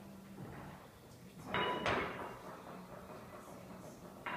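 Short metallic clanks from a plate-loaded barbell in a squat rack as the lifter sets his grip: one about a second and a half in, another near the end, each with a brief ring.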